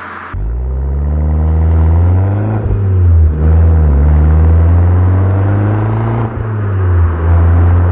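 Alfa Romeo MiTo Quadrifoglio Verde's 1.4-litre turbocharged four-cylinder engine pulling under load. Its pitch climbs and then drops back several times as it is driven through the gears and eased off.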